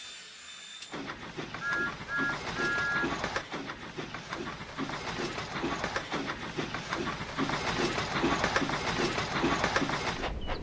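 Steam locomotive gives three short toots on a two-note whistle, the last a little longer, about a second in, then chuffs steadily along the rails, the chuffs growing slightly louder.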